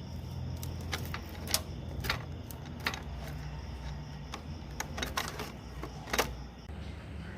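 About a dozen irregular sharp clicks and light knocks, unevenly spaced, over a low steady hum.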